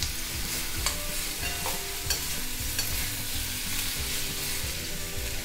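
Cubes of chow chow (chayote) sizzling in hot oil in a kadai while a steel spatula stirs them, with scattered scrapes and clicks of the spatula against the pan.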